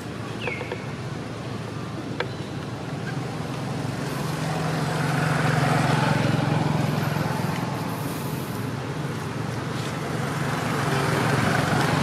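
Traffic noise: a motor vehicle's engine humming nearby, growing louder to a peak around the middle and swelling again near the end. A short falling chirp is heard about half a second in.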